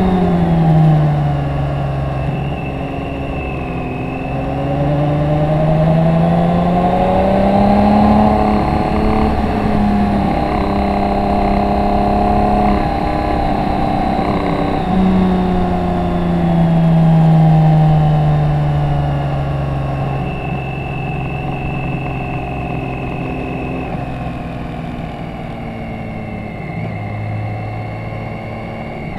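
BMW K1600 GT's inline-six engine running on the track over wind noise. Its pitch falls in the first couple of seconds, climbs for several seconds, jumps up sharply about halfway through, then sinks slowly through the second half.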